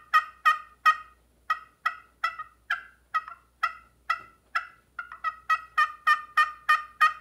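Small handheld wooden turkey call worked in a steady run of short, sharp notes, about three a second, imitating a turkey, with two brief pauses.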